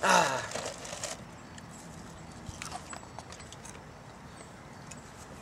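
Crinkly rustling as a hand digs into a box of Frosted Flakes cereal, loudest in the first second, followed by a few faint clicks and crackles.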